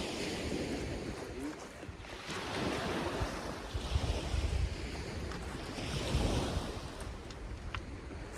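Surf washing onto a sandy beach, rising and falling every couple of seconds, with wind buffeting the microphone.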